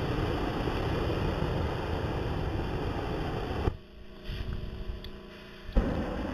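Flamethrower firing a stream of burning fuel, a loud, steady rushing roar that stops abruptly about three and a half seconds in. A quieter stretch follows, then a sharp knock, and a softer rushing noise comes back near the end.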